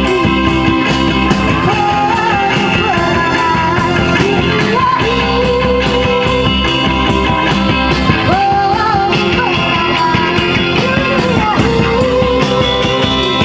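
Live rock band with a female lead singer holding long notes, backed by guitar, keyboard, bass and drums keeping a steady beat.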